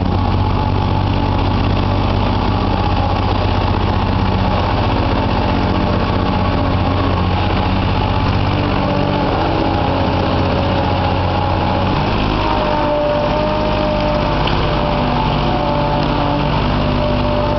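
Diesel engine of a custom-built tracked marsh harvester running steadily while the machine drives and turns. The engine note shifts about twelve seconds in, and a steady higher tone joins it.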